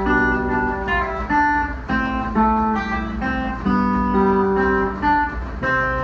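A guitar playing a slow phrase of picked, ringing notes and chords, a new note struck about every half second, over a steady low hum.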